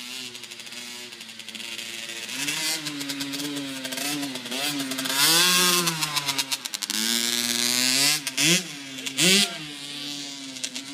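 Small dirt bike's engine revving up and down as it is ridden, its pitch rising and falling with the throttle. It grows loudest as the bike passes close about halfway through, drops in pitch, then revs in short bursts and fades as it rides away.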